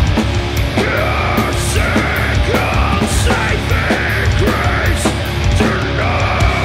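Doom metal band playing live: heavily distorted electric guitars and bass, drums with crashing cymbals, and a harsh shouted vocal over them.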